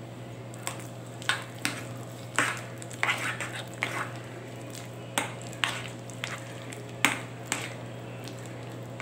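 Metal spoon stirring thick, ground urad dal batter in a glass bowl, the spoon clicking and scraping against the glass at irregular intervals over a steady low hum.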